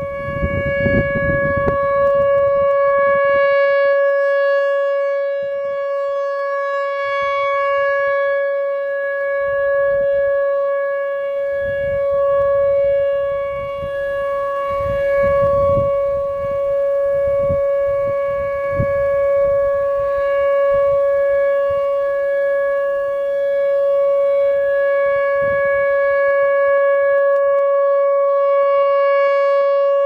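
Whelen Vortex R4 tornado siren sounding a steady, unbroken alert tone during a test. The loudness swells and dips slowly as the rotating horn head turns toward and away from the listener.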